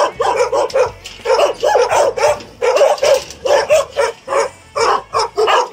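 Dogs in shelter kennel runs barking repeatedly and fast, about three barks a second with short gaps between.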